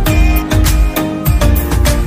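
Background music with a strong, steady beat and sustained melodic notes.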